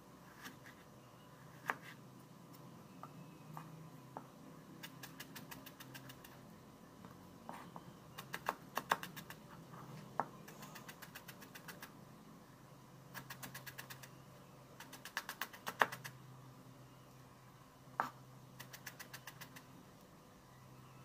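Chef's knife chopping on a plastic cutting board: scattered single knocks and several quick runs of rapid taps as the food is minced, over a low steady hum.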